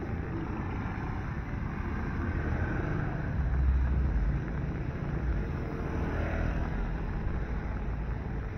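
Street traffic on a wet road, with a steady hum from motorized tricycles and cars. A motorcycle passing close by about halfway through is the loudest moment.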